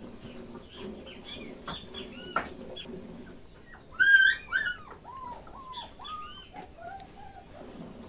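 Dogs whining and yelping in short calls that bend up and down. The loudest, highest whine comes about four seconds in, followed by a run of falling whines.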